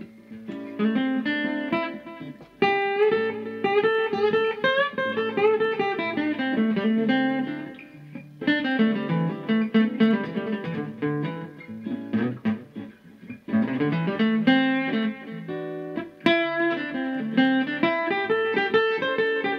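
Steel-string acoustic guitar playing an improvised single-note solo in the A minor pentatonic scale over a backing track of chords and bass.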